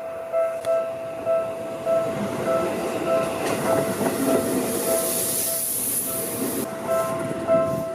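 Seibu Ikebukuro Line electric train passing over a level crossing while the crossing bell rings steadily, about two dings a second. The train noise swells from about two seconds in, is loudest with a hiss in the middle, and drops off sharply near the end, leaving the bell.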